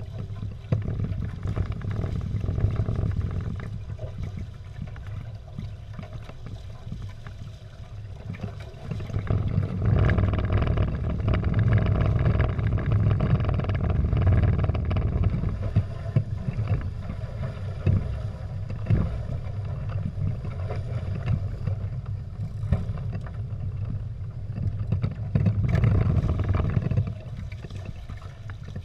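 Water rushing and splashing along the twin hulls of a Prindle 16 catamaran under sail, with wind rumbling on the microphone. The rushing grows louder for several seconds about a third of the way in and again shortly before the end.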